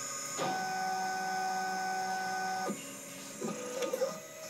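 Stepper motors of a Sherline 5400 CNC mill on a TB6560 driver, moving an axis. A steady whine of several pure tones holds for about two seconds and cuts off, then a shorter, lower move follows with a few clicks.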